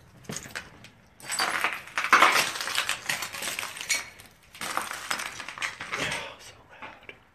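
Footsteps crunching and scraping over broken plaster and rubble on a concrete floor, with small clinks of loose debris, in two long stretches.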